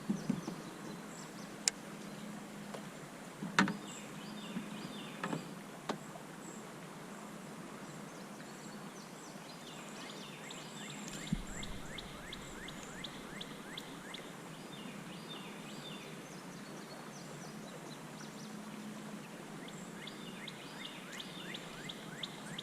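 Birds chirping in repeated quick trills over a steady background noise outdoors, with a few sharp knocks and clicks in the first several seconds.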